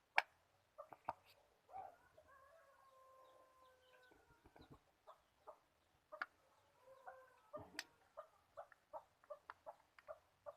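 A rooster crows: one long call about two seconds in, and a shorter one near the eight-second mark. Scattered sharp clicks and taps run throughout.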